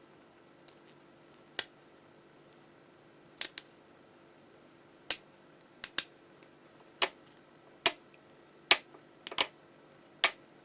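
A blade shaving and snipping the plastic ribs on the underside of a sewing machine's needle plate, cutting a bevel so the thread no longer catches: about a dozen short, sharp clicks, irregularly spaced roughly a second apart.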